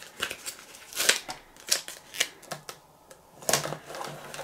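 Hands handling a cardboard kit box and peeling and pressing on a paper sticker: a string of short taps, crinkles and rustles, several to the second.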